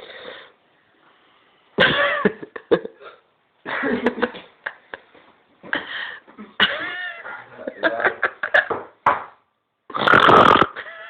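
A person coughing and making throaty, burp-like noises in a series of short bursts, with the loudest, roughest one about ten seconds in.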